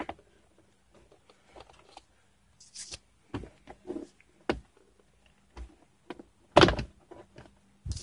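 Subaru WRX plastic center-console trim being handled and pried loose by hand: scattered clicks and knocks, with one loud thunk about six and a half seconds in.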